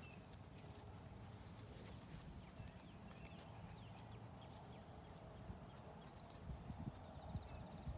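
Faint hoofbeats of a horse moving on an arena's dirt footing, irregular soft thuds and clicks over a steady low rumble.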